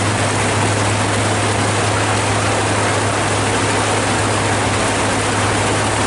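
Heavy rain pouring steadily, with a steady low engine hum underneath.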